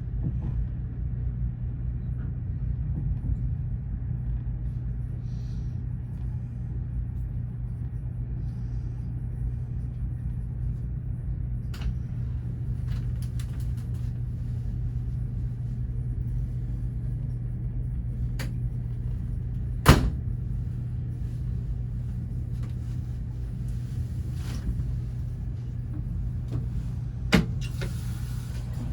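Steady low rumble and hum of the VIA Rail Canadian passenger train running, heard from inside a sleeper cabin. A few sharp knocks stand out over it, the loudest about twenty seconds in and another near the end.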